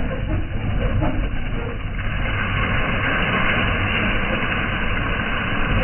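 Engine of a rice-harvesting machine running steadily, with a harsher, louder hiss joining its low rumble about two seconds in.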